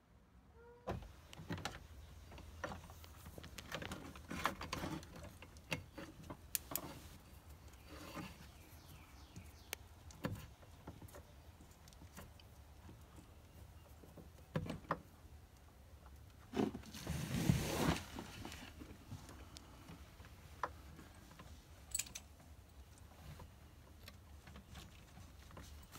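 Hands handling and fitting wires at a solar charge controller: faint rustling and small scattered clicks, with a louder rustle about 17 seconds in, over a low steady hum.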